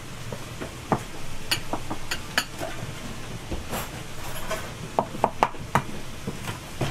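A serving spoon clinking and knocking against a steel mixing bowl and small ceramic bowls as food is dished out. The clinks are irregular, with a quick run of them about five seconds in.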